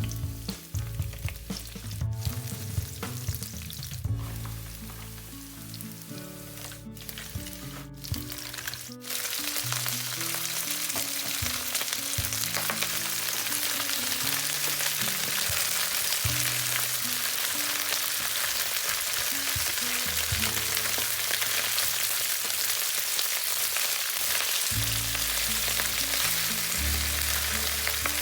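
Food stir-frying in a hot pan, a steady sizzle that starts about nine seconds in and runs on under soft background music. Before that there is only the music, broken by a few abrupt cuts.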